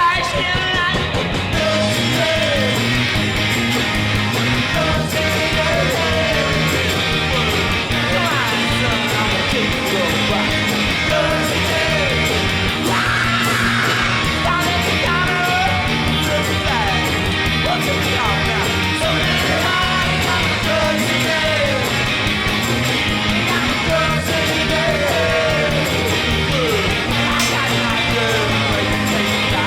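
Background rock music with loud, shouted singing over guitars and a steady beat.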